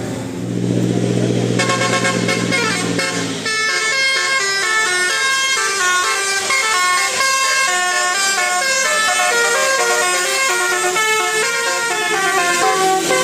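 Bus telolet horn (Basuri multi-tone musical horn) playing a fast tune of stepping notes, coming in about a second and a half in and growing fuller about three and a half seconds in. Under its start runs a low steady drone that stops about three and a half seconds in.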